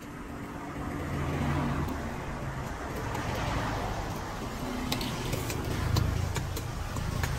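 A motor vehicle passing close by, its engine hum and tyre noise swelling around the middle and fading, with another engine building near the end. A few light clinks of a metal ladle against a stainless steel bowl.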